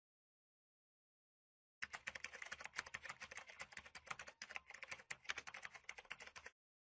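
Rapid computer keyboard typing sound effect, a dense run of fast clicks that starts about two seconds in and stops shortly before the end, accompanying text being typed out on screen.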